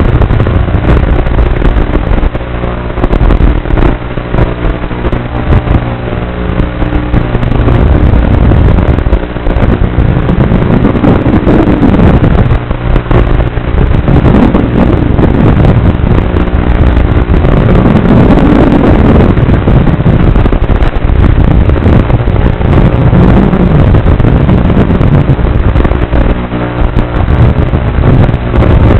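Small ducted FPV quadcopter's brushless motors and propellers buzzing loudly as it flies, heard from the drone's own onboard microphone, the pitch swelling up and down several times as the throttle is worked.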